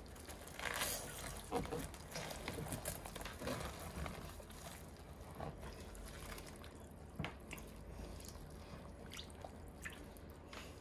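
Soy-sauce brine dripping and sloshing as mesh bags of pickling chili peppers are lifted, turned over and pressed back down into the liquid in a plastic container, with scattered small clicks.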